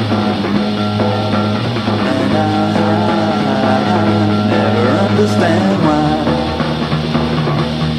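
Twee-pop band recording with electric guitar and bass guitar; the bass moves down to a lower note about six seconds in.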